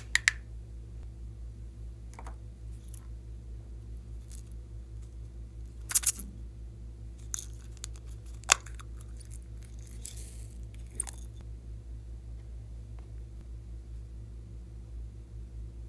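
Scattered sharp clicks and taps of small plastic makeup cases being opened and handled, the loudest about six seconds in and again a couple of seconds later, over a steady low hum.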